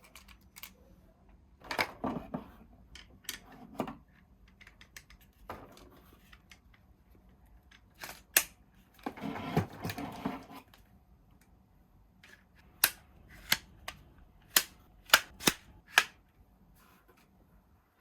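Handling noises from a plastic toy dart blaster and its packaging: rustling, and irregular sharp plastic clicks. Near the end come about seven loud snaps in quick succession.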